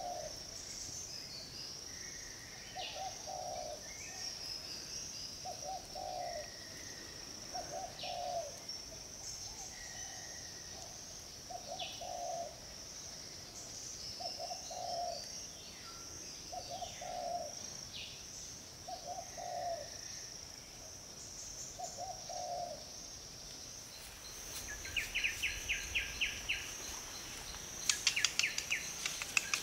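Birds and insects calling outdoors: a low call repeated about every two seconds, scattered short chirps, and a steady high insect buzz throughout. A fast pulsing insect trill starts near the end, with a few sharp clicks.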